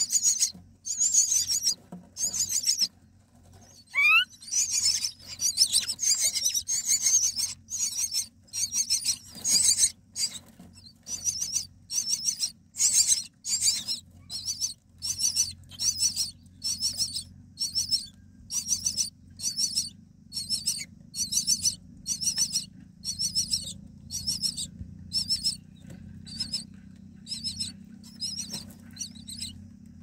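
Common myna nestlings begging: a long run of short, high, rasping calls, roughly three every two seconds, growing fainter toward the end. A single short rising whistle about four seconds in.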